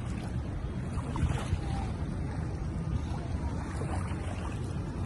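Wind buffeting the microphone over open water, a steady low rumble with water washing underneath.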